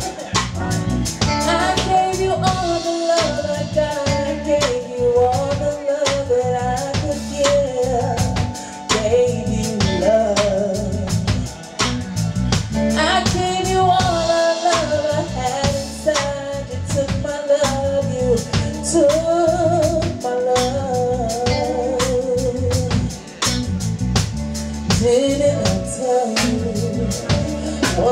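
A band playing soul music. A woman sings long, wavering notes over a drum kit and electric bass.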